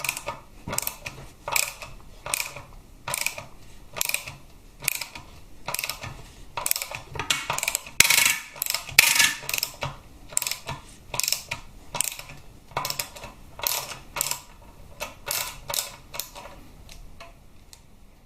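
Hand ratchet clicking in a steady run of short strokes, about one a second, winding out the Torx 40 screws that hold a primary-case tensioner shoe backing plate.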